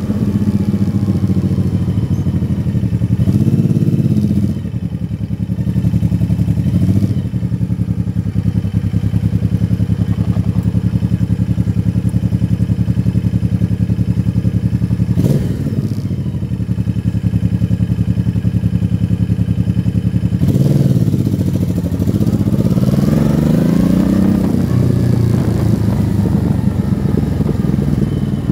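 Motorcycle engine running under way, its revs rising and falling several times, with a long swell in revs about three quarters of the way through. A single sharp thump comes about halfway in.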